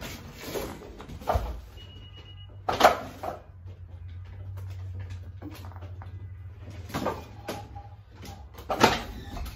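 Knocks and rattles of a manual wheelchair being manoeuvred up to a door and the door being worked open, four sharp knocks a couple of seconds apart over a steady low hum.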